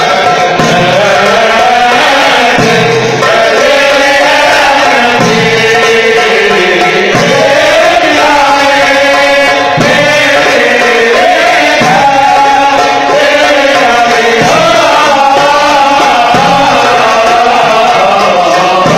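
Tunisian Sulamiya Sufi chanting: male voices sing a devotional chant through microphones and a PA, accompanied by a hand-held frame drum. The music is loud and continuous.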